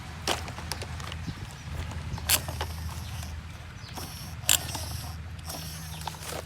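Handling noise: a few sharp clicks and rustles, the loudest about two and a half and four and a half seconds in, over a steady low hum.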